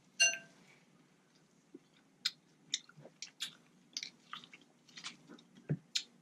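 A person chewing leftover seafood boil close to the microphone: scattered short wet smacks and clicks of the mouth. There is one sharper, briefly ringing sound right at the start.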